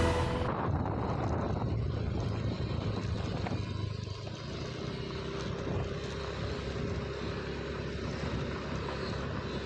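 Small motorcycle engine running at a steady cruising speed, heard from on the bike as a steady low hum. Background music cuts off just at the start.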